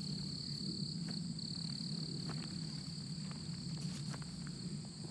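Insects chirring in a steady, unbroken high-pitched drone, over a low steady hum.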